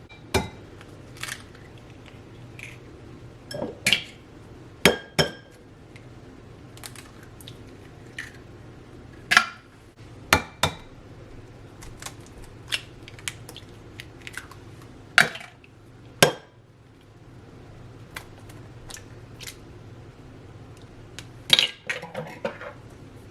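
Utensils and dishes clinking and knocking against a mixing bowl while batter ingredients are added: scattered sharp clinks at irregular intervals, a few ringing briefly.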